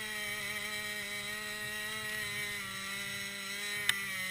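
Chainsaw held at high revs in the tree, its pitch steady and sagging slightly over the seconds. A single sharp click sounds near the end.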